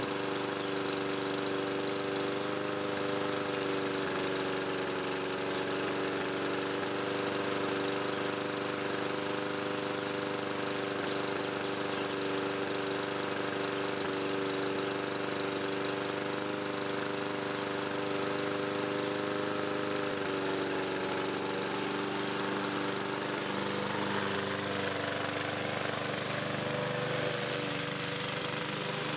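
Walk-behind rotary lawn mower's small single-cylinder engine running steadily at a constant speed while the mower stands in place. The engine had been run on dish soap in place of oil and is blowing heavy smoke, which the owner assumes is soap working back through and burning off.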